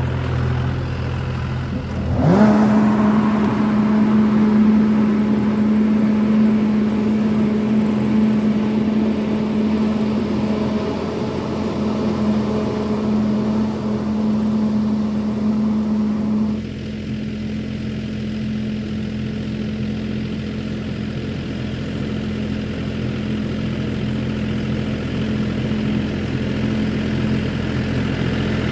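John Deere 5075 EF tractor's diesel engine revving up from idle about two seconds in, then running steadily at working speed for spraying. A little past halfway the higher-pitched noise drops off while the engine note carries on.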